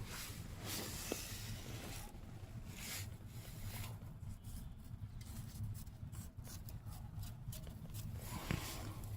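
Close rubbing, scraping and clicking handling noises over a low steady hum, with a cluster of quick clicks past the middle.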